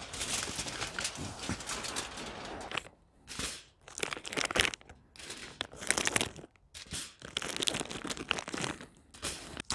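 Aluminum foil crinkling and a plastic hot dog package rustling as it is opened by hand. Steady crinkling for the first few seconds, then separate bursts of crinkling with short pauses.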